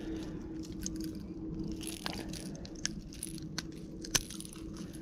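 Light clicks and rattles of a hard plastic Rebel plug and its metal treble hooks being worked out of a bass's mouth by hand, with a sharper click about four seconds in.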